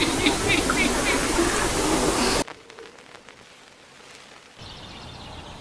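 Loud TV-static hiss of a glitch transition effect, cutting off abruptly about two and a half seconds in, followed by a much quieter stretch with only a faint background.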